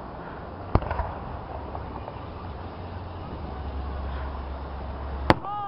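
Two sharp bangs of aerial firework shells bursting, one about a second in and a louder one near the end, over a steady low rumble.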